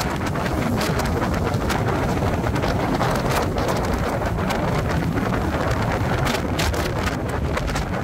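Wind buffeting the microphone through the open windows of a car moving at motorway speed, a steady rush with frequent crackling pops, over road and engine noise.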